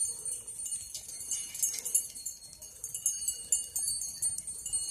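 Small bells on a herd of harness reindeer jingling as the animals walk through snow: a steady tinkle of overlapping bells with scattered small clicks.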